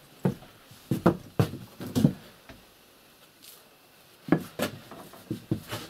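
Hard knocks and clatters of brick pieces and tools being handled in an opening in a brick stove's wall: several sharp strikes in the first two seconds, a pause of over a second, then another run of knocks near the end.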